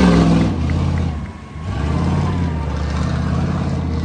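Off-road race truck engine revving hard at a peak to start, easing off with a brief drop about a second and a half in, then back on the throttle and holding steady.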